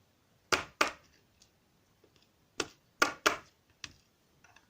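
Sharp clicks and taps of small lock parts and tools being handled while a Mul-T-Lock Integrator dimple lock is taken apart: two clicks about half a second in, then three more close together near the middle, followed by a few fainter ticks.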